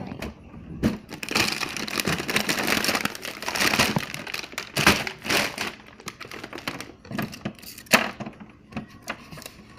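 Crinkling and rustling with scattered clicks and knocks as items are handled and moved about at a kitchen freezer. The rustling is densest in the first half, with a sharp knock near the end.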